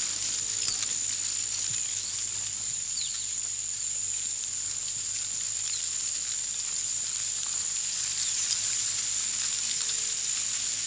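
Insects sounding one steady, unbroken high-pitched note over a soft, even hiss of outdoor ambience.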